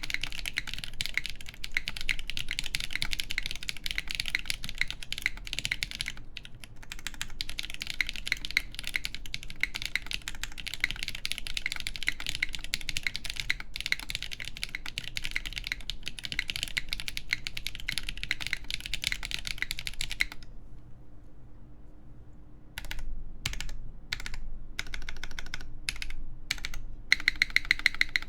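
Typing on a Neson 700E mechanical keyboard with lubed KTT Yexia switches, an aluminium plate and GMK keycaps: a fast, dense run of keystrokes that stops about two-thirds of the way through for a couple of seconds, then picks up again in short spaced groups.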